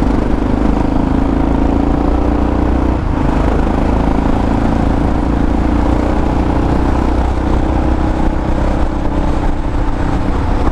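Yamaha XT600E's single-cylinder four-stroke engine running at a steady cruise through an old aftermarket Coyote exhaust, loud and unbroken.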